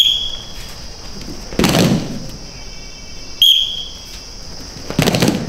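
A referee-type whistle gives a short sharp blast twice, about three and a half seconds apart. About a second and a half after each blast, a brief loud burst of noise comes from the group of judoka moving together on the mats.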